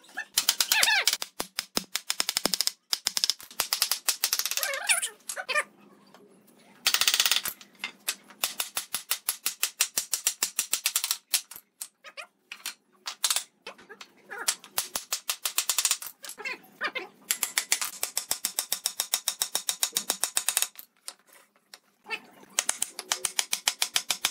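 Rapid mechanical clicking in bursts of a few seconds, about ten or more sharp clicks a second, stopping and starting several times.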